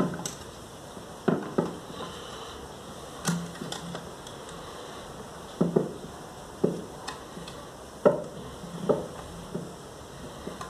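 Irregular knocks and clinks of parts and tools being handled while car cooling-system components are refitted, a dozen or so sharp knocks with the loudest about eight seconds in.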